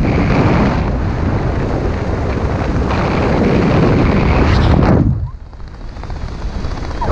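Wind rushing over a helmet camera's microphone during parachute canopy flight. The noise drops sharply about five seconds in and builds again near the end.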